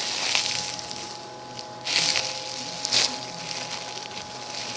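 Handling noise from a foam squishy toy being held and squeezed: three short bursts of rustling and scraping, at the start, about two seconds in and about three seconds in, over a faint steady tone.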